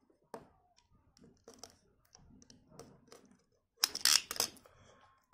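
Craft knife slitting the tape seal around a plastic toy capsule: light scattered clicks and scrapes, then a louder cluster of plastic clicks and rustling about four seconds in.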